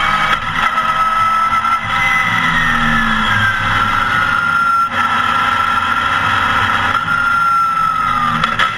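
Porsche 914 race car's engine running hard at track speed, heard from inside the cockpit. Its pitch falls and climbs again a few times, with short dips in the sound.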